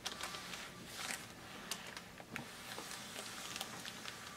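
Faint swishing of a clothes iron sliding over a silicone release sheet, with a few soft ticks and rustles of the sheet.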